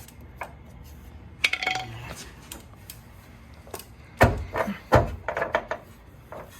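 Metal clanks and clinks of a pry bar and tools against the rear suspension while a new, stiff strut is levered into line. Two heavy knocks come about four and five seconds in, followed by lighter clicks.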